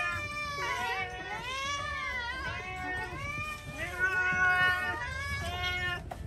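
Several domestic cats meowing at once, overlapping drawn-out meows that rise and fall in pitch, as they clamour for food.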